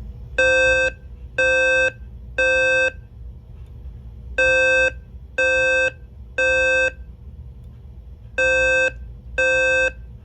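Fire alarm speaker/strobe sounding the temporal-three evacuation tone: three half-second beeps, a pause, then the set of three again, over a steady low hum.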